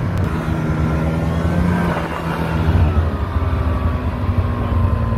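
Engine of a vehicle driving slowly along a snow-covered track, running steadily with a slight change in its note about three seconds in.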